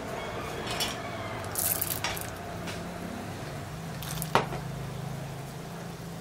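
Tempering seeds frying in hot oil in a steel kadai: a steady sizzle with a few sharp crackles and spits, the sharpest about four seconds in, as more is sprinkled into the oil.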